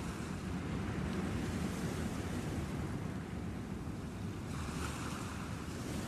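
Surf breaking and washing over a rocky shore, a steady rushing wash of seawater that grows brighter about two-thirds of the way in.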